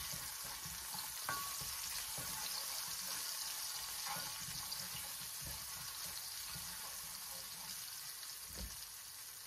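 Garlic, oregano, chicken bouillon and cubanela pepper frying in hot oil in a caldero: a steady sizzling hiss. A wooden spoon stirring the mix gives scattered light scrapes and taps against the pot.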